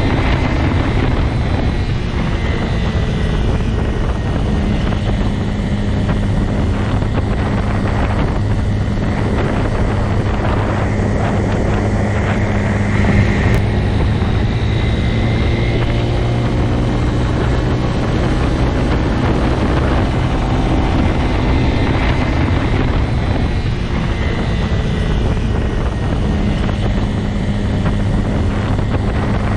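Motorcycle engine running at a steady speed, a constant low drone with a brief louder moment about halfway through.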